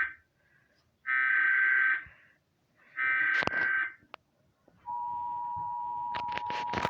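Emergency Alert System SAME header data bursts: a buzzy one-second burst ends just as it begins, then two more follow a second apart. About five seconds in, the steady two-tone EAS attention signal starts. A few faint clicks sound over it near the end.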